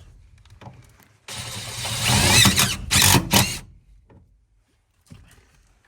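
Cordless impact driver running in one burst of about two seconds, with a short break near the end, driving a fastener through a sign patch into the car's floor pan.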